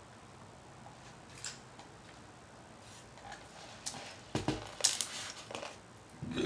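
A quiet stretch, then a few clicks and soft knocks about four to five seconds in as a fountain-drink Coke is sipped and the cup handled. A burp starts right at the end.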